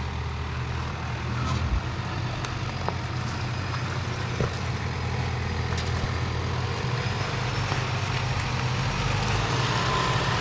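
A four-wheel-drive's engine running steadily under load while crawling over a rocky track, with scattered sharp clicks and knocks from stones and the underbody. It grows a little louder near the end.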